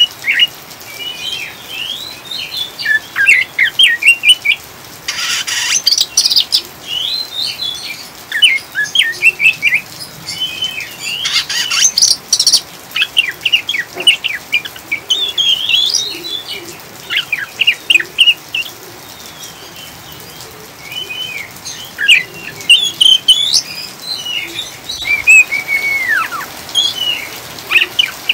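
Oriental magpie-robin (kacer) singing in the rapid chattering 'ngriwik' style: dense runs of short, high chirps and quick falling notes, over a faint steady hiss of rain. Two brief rushing noise bursts break in about five and twelve seconds in.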